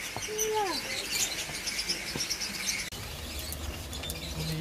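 Small birds chirping in the background. A short falling call sounds in the first second, and a low rumble comes in at about three seconds.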